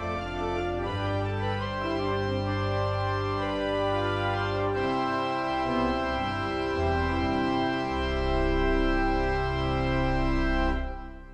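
Church organ postlude: sustained chords over deep bass notes, with the closing chord held and then fading away near the end.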